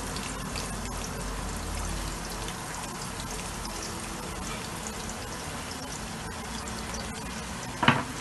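Chopped onions frying in hot oil in a stainless steel pan, a steady sizzling hiss. A single sharp knock near the end.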